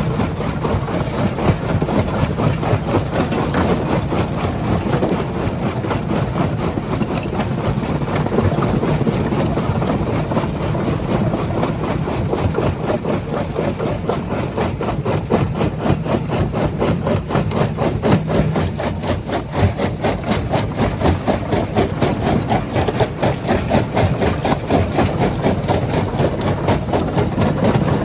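Heavy stone-crushing plant machinery running steadily: a low diesel engine hum under a dense, rapid rattle.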